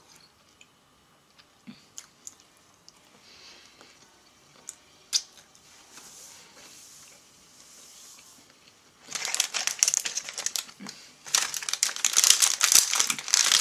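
Plastic candy packaging crinkling and rustling as it is handled, starting about nine seconds in. Before that there are only a few faint clicks and rustles.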